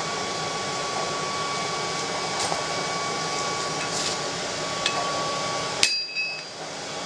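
Hammer striking red-hot steel held over a hardy cutter on an anvil to cut it: a few light taps, then one sharp blow near the end that rings out briefly. A steady hum lies under it.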